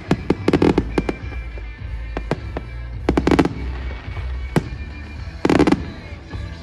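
Aerial firework shells bursting: sharp bangs coming singly and in tight clusters of several pops, every second or so, over a low continuous rumble.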